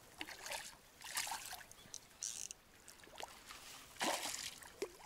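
Faint splashing of a hooked zander thrashing at the water's surface as it is played toward the bank, with a louder splash about four seconds in.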